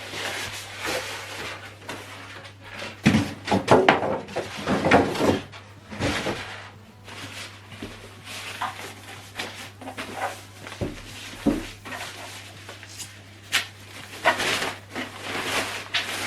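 Packaging being handled during unboxing: irregular rustling and scraping with knocks, loudest in a cluster about three to five seconds in.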